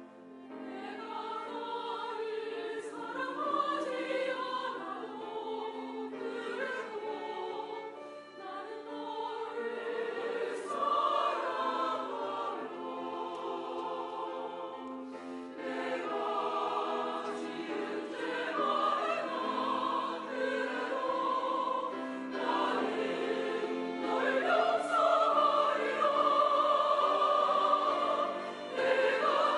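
Large mixed church choir singing a Korean hymn in harmony, swelling louder in the second half.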